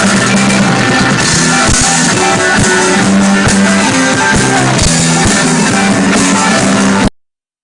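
Rock band playing live, with electric guitars and drums, cutting off suddenly about seven seconds in.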